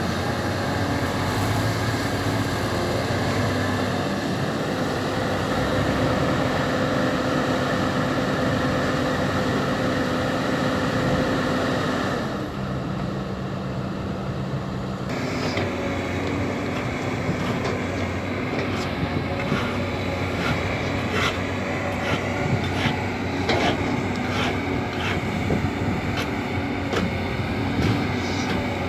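Caterpillar 320D hydraulic excavator's diesel engine running steadily while it digs and loads soil. From about halfway there are repeated metal clanks and knocks.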